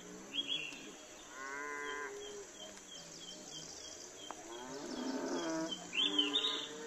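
Two long, drawn-out animal calls, one about one and a half seconds in and one about five seconds in, with short high chirps near the start and end.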